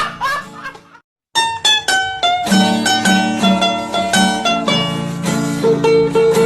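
A fast, bright tune played on a plucked string instrument, in quick separate notes. It cuts out briefly about a second in, then starts again.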